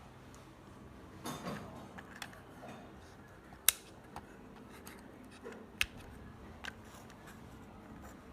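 Handling noise: a scattered series of sharp clicks and light knocks of small hard objects. The two loudest clicks come about halfway through and again two seconds later.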